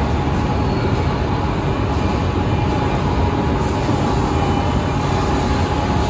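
Woodworking factory machinery running: a steady, loud mechanical drone with a constant high whine over it.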